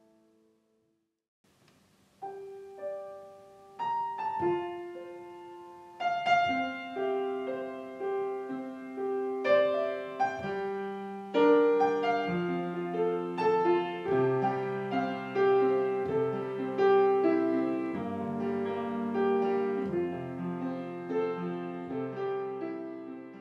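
Solo piano music. After a short pause, single notes start about two seconds in, sparse at first, then build into a steady flow of notes and chords.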